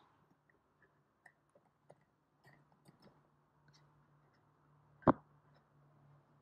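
Grooming scissors snipping through the synthetic fur wig of a model dog head: scattered light clicks, with one sharp knock about five seconds in, over a faint low hum.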